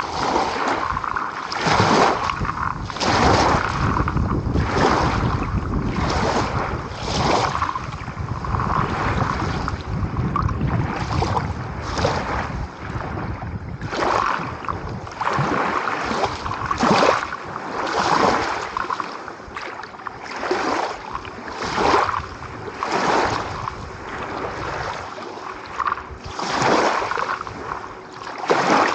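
Small sea waves breaking and washing on the shore, with a short splash about every second. A low wind rumble on the microphone runs under the first half.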